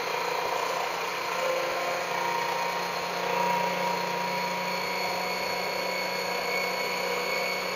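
Electric food processor with a centrifugal juicer attachment, its motor running at a steady whine while juicing pieces of amla (Indian gooseberry).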